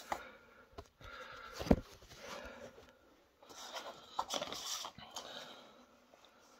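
A man's heavy, panting breaths after the strain of bending a steel bolt by hand, in drawn-out bursts about a second long. A single sharp knock sounds about a second and a half in.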